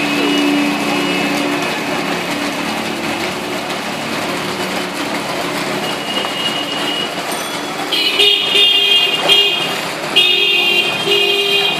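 Street traffic with vehicle engines running under a steady wash of noise. From about two-thirds of the way through, vehicle horns honk in a string of short, high blasts.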